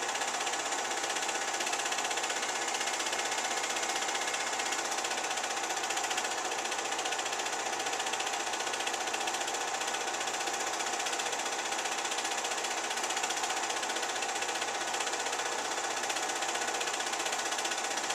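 Home-movie film projector running: a steady, even mechanical whirr and clatter from the film-advance mechanism.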